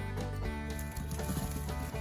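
Instrumental background music with sustained pitched notes.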